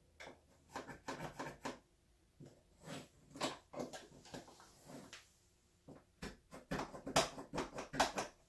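Pencil marking on a wooden wall, tracing the outline of an outlet-box hole in a series of short, irregular scratching strokes, busiest near the end.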